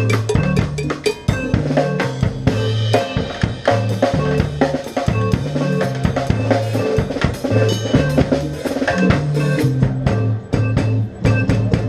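Drum kit playing a fast, busy beat with rimshots, over a repeating bass line.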